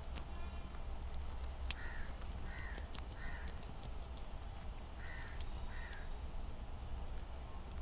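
Guinea pigs chewing fresh greens close to the microphone: scattered crisp crunching clicks over a steady low hum. Five short calls sound in the background, three in a row and then two more a couple of seconds later.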